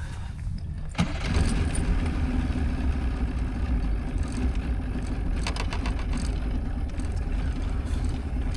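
Fishing boat's main engine starting about a second in, then running steadily at low speed, with a few sharp clicks midway.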